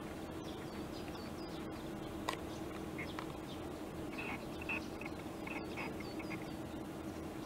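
Small wild birds calling in short, repeated high chirps, several with quick downward slides, over a steady low background hum. A single sharp click a little after two seconds in.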